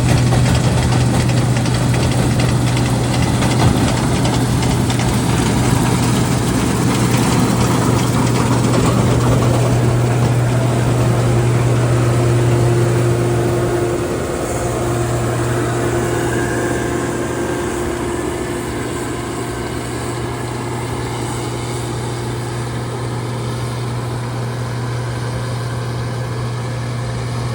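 Heavy diesel engine of harvest machinery running steadily with a strong, even hum, a little quieter from about halfway through.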